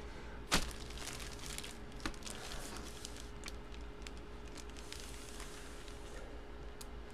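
Clear plastic bag around a sports jersey crinkling as it is handled, with a sharp snap about half a second in and a smaller one near two seconds, over a faint steady hum.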